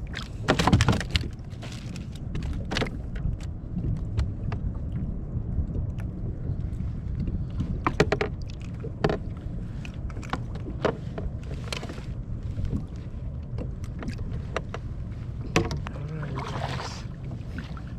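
Scattered clicks and knocks of gear being handled in a small fishing boat, a louder clatter about a second in and sharp knocks about 8 and 15 seconds in, over a steady low rumble.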